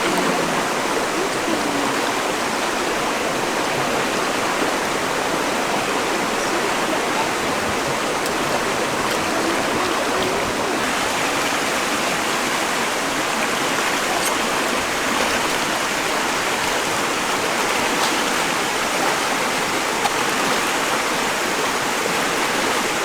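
Steady rush of water from a waterfall and stream.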